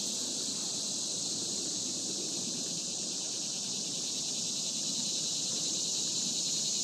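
Steady high-pitched chorus of insects such as crickets or katydids, a dense, finely pulsing trill that goes on without a break.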